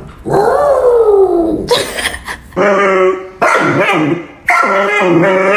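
A dog howling: one long howl sliding down in pitch, a short noisy burst about two seconds in, then a run of long, wavering howls with short breaks between them.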